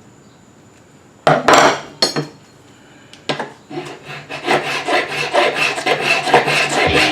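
Hand filing of a cast silver piece: a quiet start, two separate rasping strokes, then strokes coming faster, several a second, through the second half.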